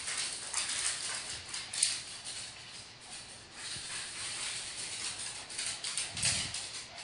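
Small dogs running on a hardwood floor, their claws clicking and scrabbling in quick irregular runs, with one sharper knock about two seconds in.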